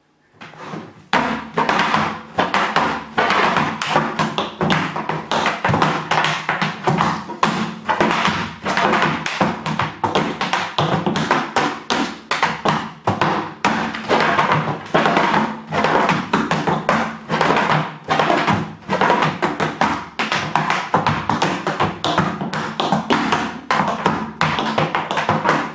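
Tap shoes striking a wooden tap board in a fast, continuous tap-dance rhythm of dense, crisp strikes that starts about a second in.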